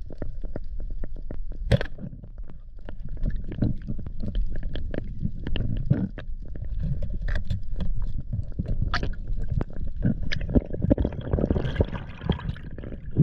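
Underwater sound picked up by an action camera's housing while freediving over a reef: a steady low water rumble with many irregular sharp clicks and crackles. A rushing hiss of water builds near the end.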